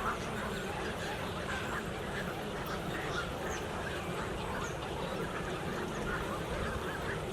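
A large flock of water birds calling all at once: a dense, steady chorus of many overlapping quacking and squawking calls.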